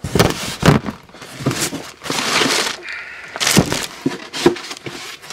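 Plastic bag and cardboard packaging crinkling and rustling as they are handled, with a few sharp knocks in between.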